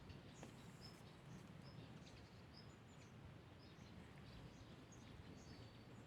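Faint, short high chirps of a small bird, repeated every half second to a second over quiet background noise.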